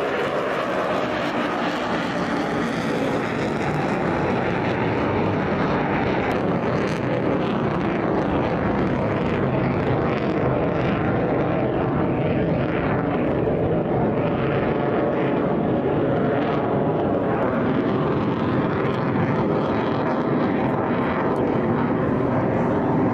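Jet noise from an F-35B Lightning II's single F135 afterburning turbofan engine as the fighter flies its display overhead. It is a steady, loud rushing roar with a crackling edge.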